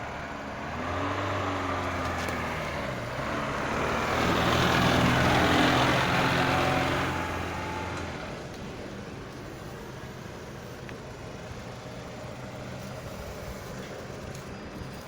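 A motor vehicle drives past close by: its engine note builds over the first few seconds, is loudest with tyre and engine noise about four to seven seconds in, then fades away, leaving a low background hum.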